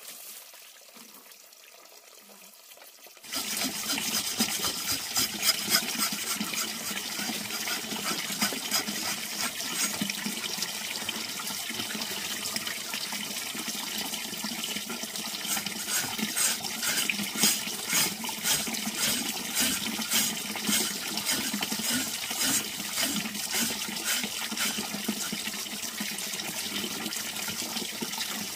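Water sloshing in a plastic basin while a large knife scrapes wet pork skin, in repeated short scraping strokes a few a second. It starts suddenly about three seconds in, after a quieter opening.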